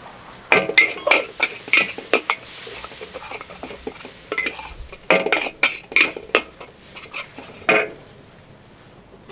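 Metal cooking utensil clanking against a cooking pan while mee goreng mamak is being cooked: two quick runs of ringing strikes, then one last clank near the end.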